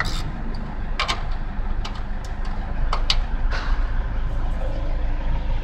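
A few sharp metallic clicks and taps from a wrench working the nuts on a front strut's upper mount, over a steady low rumble.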